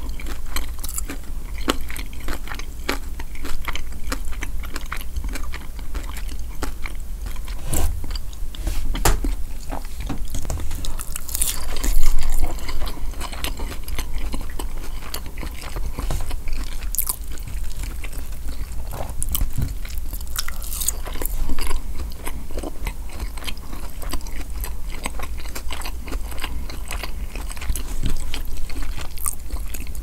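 Close-miked chewing and biting of a fried lemon pepper chicken wing, with many small crunches and mouth clicks. One louder crunch comes about twelve seconds in.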